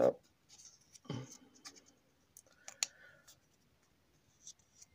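Small paper slips being folded and creased by hand: faint rustling with a few crisp clicks, the sharpest a little before the middle.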